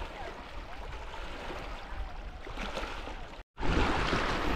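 Outdoor ambience with faint distant voices over a steady noisy background. About three and a half seconds in it cuts off abruptly, then resumes louder with wind on the microphone.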